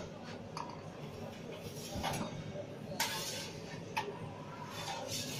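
Kitchen clatter from work at a deck pizza oven: sharp knocks about a second apart, the loudest about three seconds in and followed by a short scraping hiss, over murmuring background voices.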